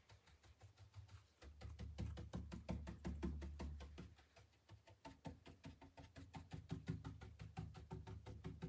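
Round paint brush dabbing rapidly against a wooden chest panel, about six soft taps a second with a low thud behind them, as wet paint is stippled to blend light and dark purple.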